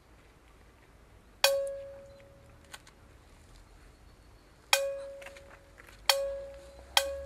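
A bell struck four times, each stroke ringing on one clear pitch and fading away; the strokes come closer together toward the end.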